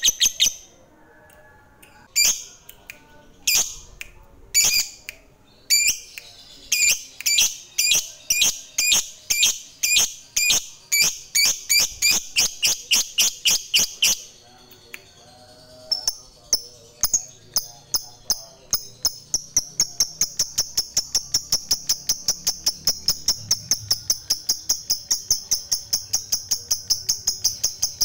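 A lovebird's 'ngekek' chatter. After a few scattered sharp chirps it breaks into a long run of high chirps repeated about four times a second. The run breaks off about fourteen seconds in and starts again a couple of seconds later.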